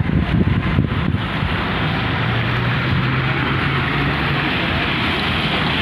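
Steady rushing noise with a low rumble: wind buffeting the microphone over traffic on a wet road. A faint engine hum comes in about two seconds in and fades out by about four and a half seconds.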